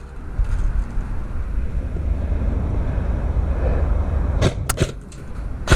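Steady low rumble, then four sharp cracks in two pairs near the end: airsoft guns firing.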